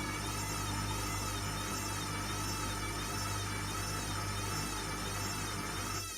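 Hotpoint WMBF742 washing machine running, its motor whine wavering up and down in pitch about once a second over a steady low hum. Just before the end the low rumble cuts out suddenly while the whine carries on.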